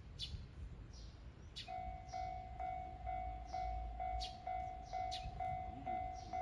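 A railway level-crossing alarm starts ringing about two seconds in, a steady electronic ding repeating a little over twice a second, which signals that a train is approaching. Birds chirp at the same time.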